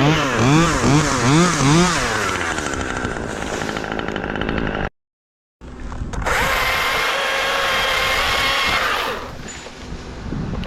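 Chainsaw blipped up and down in quick revs about twice a second, then running steadily. After a brief cut in the audio, a chainsaw runs at steady high speed for a few seconds before dropping away near the end.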